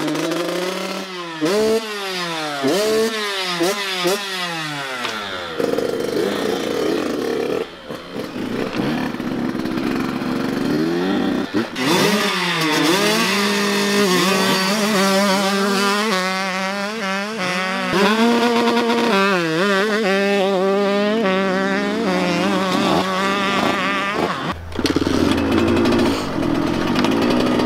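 Small youth motocross bikes revving with a high two-stroke buzz: at first one engine blipping its throttle, the pitch sweeping up and down quickly, then from about twelve seconds in several bikes revving together, their pitches rising and falling over one another.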